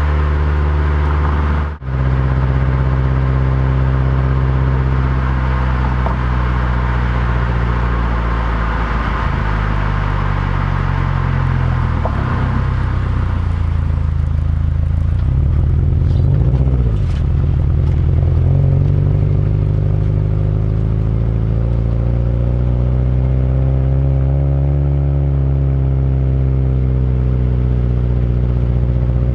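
Subaru WRX STI's turbocharged 2.0-litre flat-four engine running under way with tyre noise, heard from a microphone outside the car. The engine note falls and rises with speed, dipping lowest a little past halfway before climbing again. There is a brief break about two seconds in.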